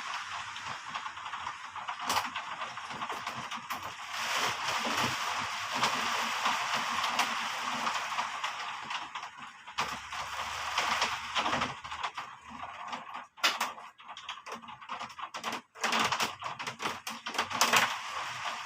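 Heavy rain falling in a steady hiss, with many sharp, irregular taps of drops striking a hard surface, thickest in the second half.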